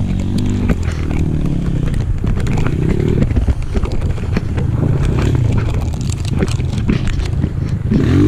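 Enduro dirt bike engine running under throttle, its pitch rising and falling as the rider works it, with scattered clicks and knocks over the top and a quick blip near the end.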